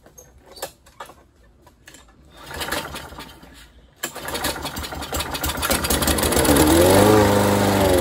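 Craftsman push mower's Kohler 149cc engine pull-started on carb cleaner sprayed into the carburetor. It turns over, fires about four seconds in and runs, speeding up and then starting to slow near the end. It runs only on the sprayed cleaner, which shows it has spark and compression; the owner suspects a dirty carburetor.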